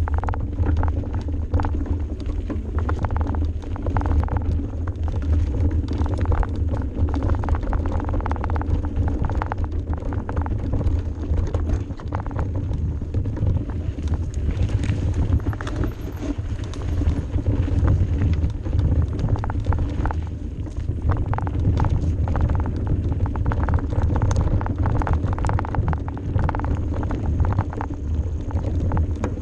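Mountain bike ridden fast down a rough dirt singletrack, heard from a camera on the rider: a steady low rumble of wind and tyres with frequent rattles and knocks from the bike over the bumpy trail.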